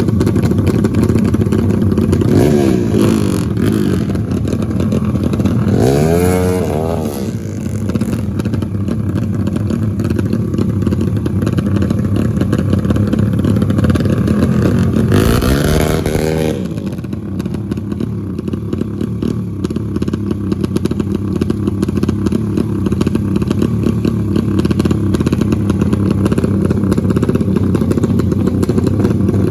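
Trail motorcycle engine running under load, revving up and down about six seconds in and again around the middle, otherwise holding a steady drone.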